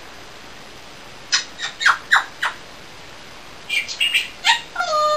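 African grey parrot calling: two quick runs of short, sharp chirps, then a held whistled note that dips slightly in pitch near the end.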